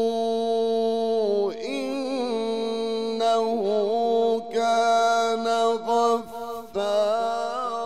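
A male Quran reciter chanting in the melodic mujawwad style, drawing out one long steady note and then winding through wavering melismatic runs with a couple of short breaks.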